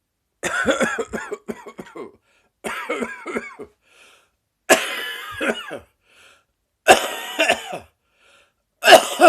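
A person coughing in five bouts about a second long, with short pauses between; the first bout is a quick run of several coughs, and the last trails off in a falling tone. It is a persistent morning cough that has gone on for six weeks.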